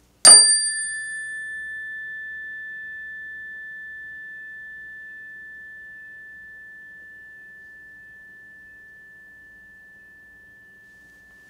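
A single struck metal chime rings one clear tone that fades slowly over about eleven seconds. Its higher overtones die away within the first second or two.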